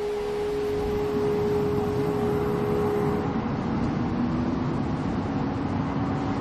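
Soundtrack drone: a held note fades out about three seconds in, under a steady rushing noise that swells slightly, and a lower held note comes in during the second half.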